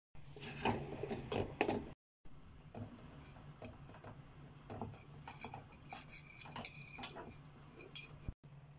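Metal spoon scraping and clinking against a stainless steel bowl while mixing thick gram-flour (besan) batter, loudest in the first two seconds. Then lighter, scattered clinks and scrapes as a stuffed green chilli is coated in the batter.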